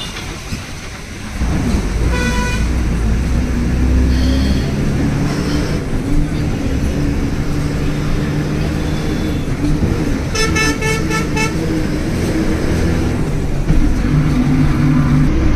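Road traffic: a vehicle engine drones, louder from about a second in, while vehicle horns toot. There is a short horn blast about two seconds in and a longer, rapidly pulsing horn about ten seconds in.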